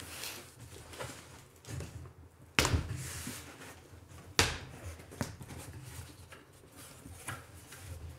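Cardboard shipping box being opened by hand: flaps pulled up and packing inside rustled and shifted, with two sharp knocks of the cardboard, one about two and a half seconds in and the louder one near the middle.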